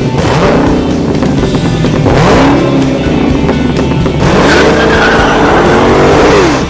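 Car engine revving hard in several rising and falling sweeps, the longest near the end, with music underneath.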